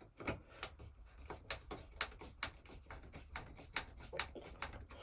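Faint, irregular clicks and taps, about three or four a second, from the old smoke alarm's mounting bracket being worked loose and removed from the ceiling.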